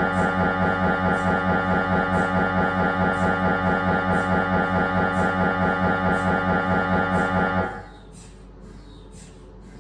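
Siemens Magnetom Avanto 1.5 T MRI scanner's gradient coils sounding a loud buzzing tone during a scan sequence, pulsing about five times a second. It cuts off suddenly near the end, leaving a much quieter background hum.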